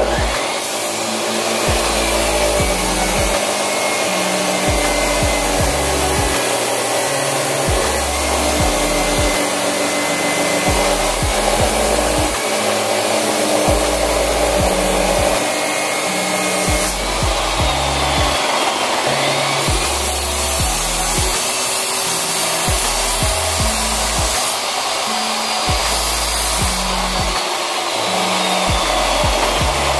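Abrasive chop saw running steadily, its cut-off wheel grinding through steel rod with a continuous harsh grinding noise.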